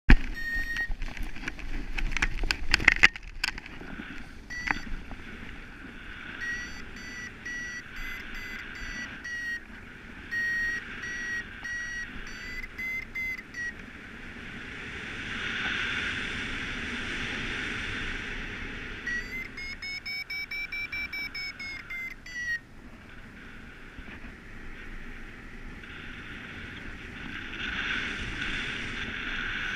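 Paragliding variometer beeping: runs of short, high beeps with pauses between them. About twenty seconds in, a fast run rises and then falls in pitch, the vario signalling lift in a climb. Wind rushes over the microphone in waves, and the first few seconds hold loud knocks of the launch run in snow.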